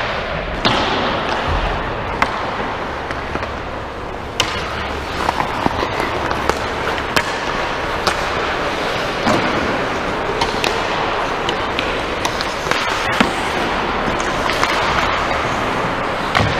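Ice hockey play in an indoor rink: a steady scrape of skates on the ice, with frequent sharp clacks of sticks on the puck and knocks off the boards, echoing in the arena.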